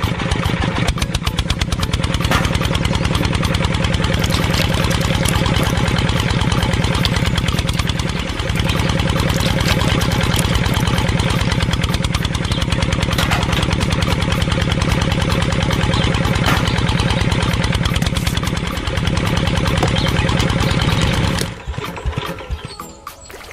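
Miniature model engine running steadily with a rapid, even chugging as it drives a small water pump; it cuts off suddenly near the end.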